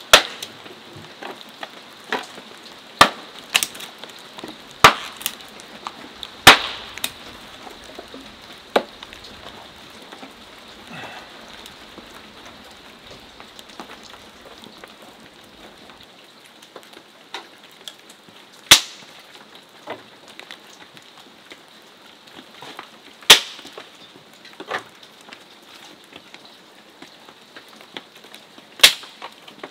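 Hatchet splitting kindling on a wooden chopping stump: sharp chops about once a second for the first nine seconds, then a few single loud knocks of wood later on, over a steady background hiss.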